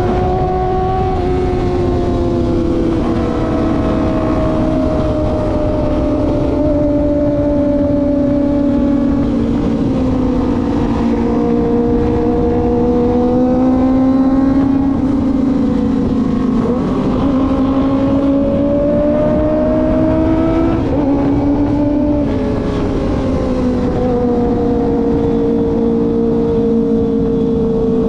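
Kawasaki ZX-25R's high-revving 249 cc inline-four engine running at a cruise under the rider. Its pitch sinks slowly, climbs again, then drops sharply about two-thirds of the way through, as on a gear change or closing the throttle.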